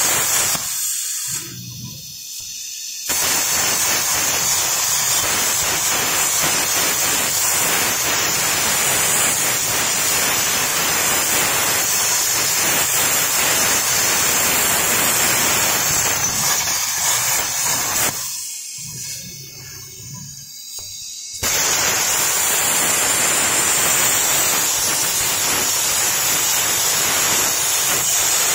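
CNC air-plasma torch driven by a Huayuan LGK 200A power source, cutting mild steel plate with a loud, steady hiss. The arc stops twice, about a second in and again about 18 seconds in, for two to three seconds each time, then starts again suddenly.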